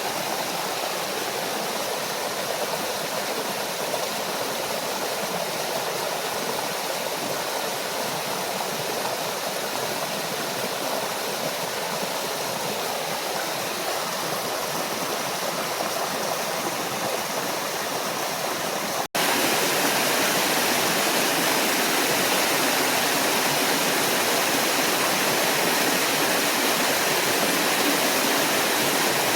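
Small forest waterfall and stream running with a steady rush of water. About two-thirds of the way through it cuts out for an instant, then carries on slightly louder.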